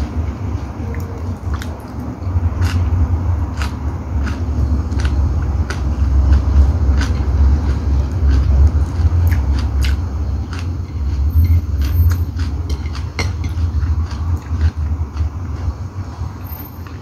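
A person chewing chicken gizzard and liver adobo close to the microphone, with many small wet mouth clicks and smacks scattered through, over a steady low rumble.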